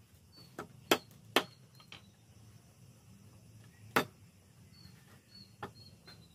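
Cleaver chopping dried fish on a thick round wooden chopping block: irregular sharp chops, three loud ones and a few lighter ones.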